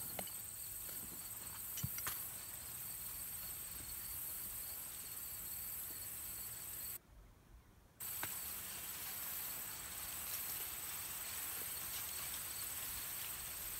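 Steady, high-pitched insect chorus buzzing over the outdoor air, with a couple of sharp clicks about two seconds in. The sound drops out for about a second around seven seconds in, then the chorus resumes.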